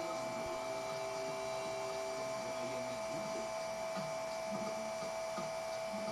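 Steady electrical hum with a constant high-pitched whine, unchanging throughout; faint low notes come and go beneath it. No welding arc is heard.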